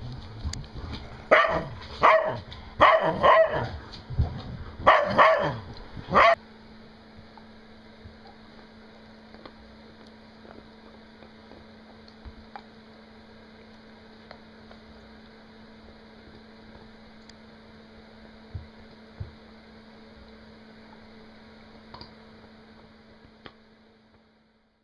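A dog barking in a quick run of about seven sharp barks over the first six seconds, stopping abruptly. After that only a steady low hum with a few faint clicks.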